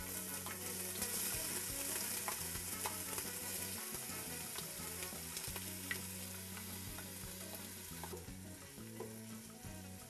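Chopped onions and carrots sizzling steadily as they sauté in a soup pot, with a few light clicks of stirring.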